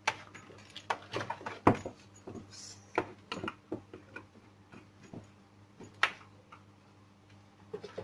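Irregular clicks and knocks of plastic cable connectors and cables being handled and plugged into a KVM switch, over a faint steady hum.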